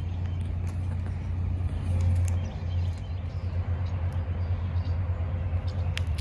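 Steady low rumble of distant motor vehicles, with a faint steady tone from about two seconds in and a few light ticks.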